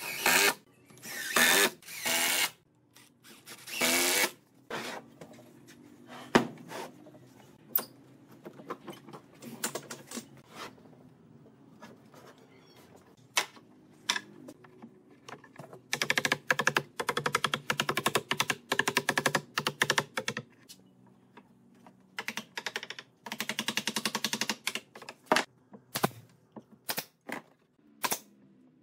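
Woodworking tools at work: a few short bursts of a power tool in the first seconds and scattered knocks, then two runs of rapid clicking strokes, each a few seconds long.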